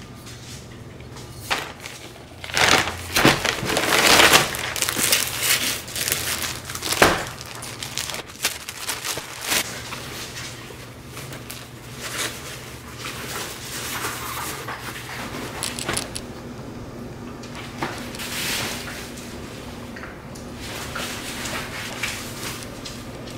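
Hands rustling and crinkling packaging and cloth while unwrapping parcels, in irregular bursts that are loudest in the first several seconds and lighter after.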